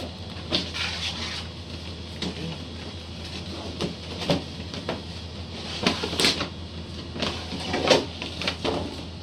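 Cardboard box and packaging being opened and handled: an irregular run of rustles, scrapes and light knocks, busiest in the second half.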